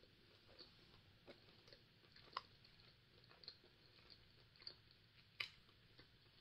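Faint close-up chewing of a soft walnut mochi: quiet wet mouth clicks every second or so, the clearest about two and a half and five and a half seconds in.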